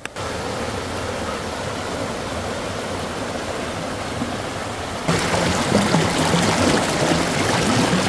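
Shallow mountain stream rushing over rocks: a steady rushing of water that becomes louder about five seconds in.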